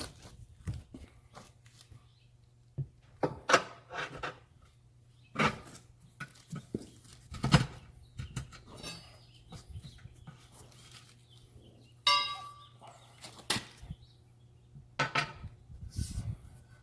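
Scattered metal clinks and knocks of hand tools against a steel tractor wheel rim while a rear tire's bead is worked onto it, with a brief squeak about three quarters of the way through.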